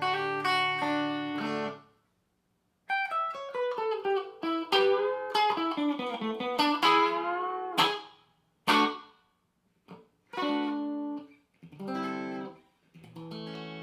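Clean electric guitar played dry with no effects, a PRS Silver Sky through a Marshall Origin 20 combo amp. A ringing chord is cut off about two seconds in; after a short gap come a run of picked single notes, a few short chord stabs, and a chord left ringing near the end.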